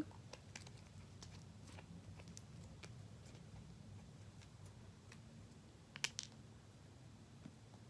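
Faint, scattered small clicks of hands working a plastic charm into slime, with two sharper clicks about six seconds in, over a low steady hum.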